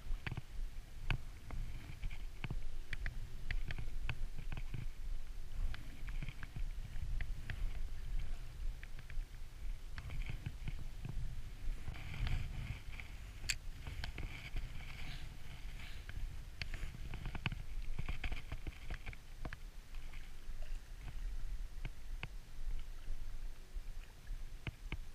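Wind buffeting the microphone with water lapping, under scattered light clicks and patches of whirring from a Daiwa Laguna LT 2500 spinning reel as a jig is wound in.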